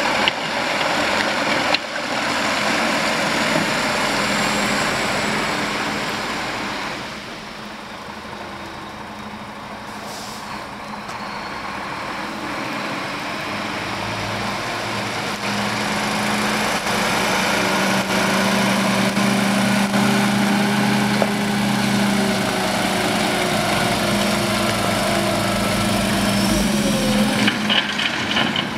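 Diesel engine of a loaded Iveco tipper truck running as the truck drives slowly; the sound drops away for a few seconds and then grows steadily louder as the truck comes close.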